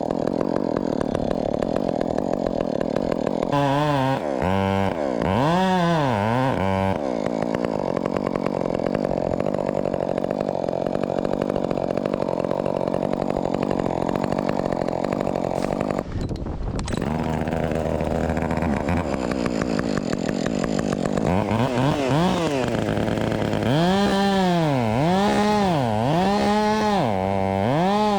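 Husqvarna 562XP two-stroke chainsaw revved in several bursts, then held at full throttle through a long cut. It drops to idle about halfway through and is then blipped up and down about once a second near the end.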